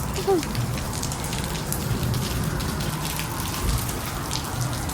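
Steady rain falling, with many separate drops hitting close to the microphone.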